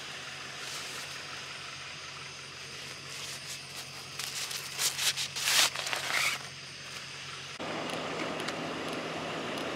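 Jacket fabric rustling and swishing as it is pulled on, a run of crisp rustles in the middle over a steady low hum. Near the end the hum gives way to a louder, even hiss.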